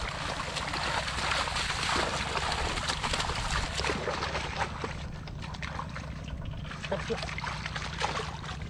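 Hands splashing and sloshing in shallow muddy water while groping for a fish, busy at first and easing off over the last few seconds, with a low steady hum underneath.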